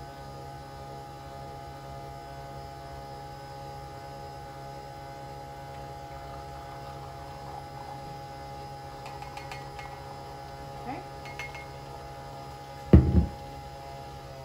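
Nespresso pod coffee machine brewing, a steady motor hum with a held whine. A few light clinks come about two-thirds of the way through, and a single loud thump follows near the end.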